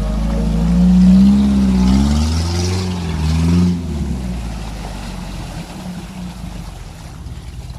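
An off-road vehicle's engine revving up and down several times, then easing to a steadier, gradually fading run.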